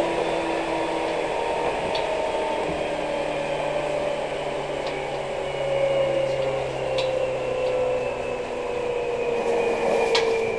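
Seibu New 2000 series electric train running at speed, its traction motors and gears whining, with the whine slowly falling in pitch as the train slows. A few sharp clicks from the wheels over the track come through, the loudest near the end.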